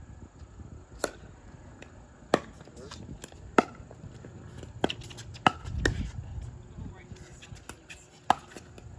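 Pickleball rally: sharp pocks of the plastic ball off the players' paddles, one roughly every second or so, with a few lighter taps in between.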